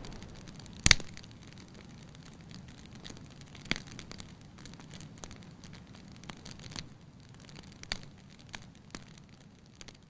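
Electric fireplace insert's crackling-fire sound effect: faint, scattered pops and crackles over a low hum, the loudest pop about a second in.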